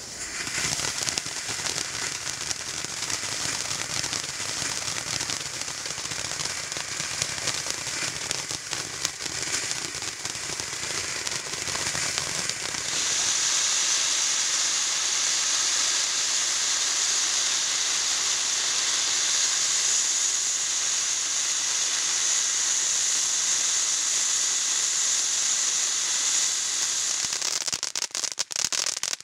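Pixie Dust ground fountain firework burning: a continuous spraying hiss with crackle. About halfway through the hiss grows louder and higher, and near the end it breaks into rapid crackling.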